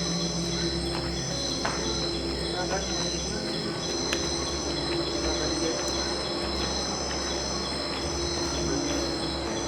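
Night insects calling in chorus: a steady high trill with a higher pulsed call repeating about once a second, over a low steady hum and a few faint clicks.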